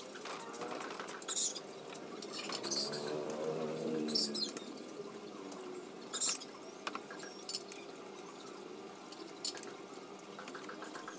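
Sparse light metallic clinks and rattles of hand tools and fasteners being handled on a scooter's rear bodywork, with a few sharper clinks about one, three and six seconds in.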